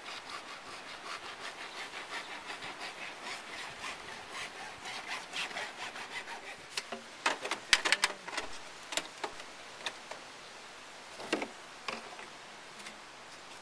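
A length of plastic pipe being cut with a hand saw: steady back-and-forth sawing strokes for about seven seconds. Then come a few sharp knocks and clicks as the pieces are handled.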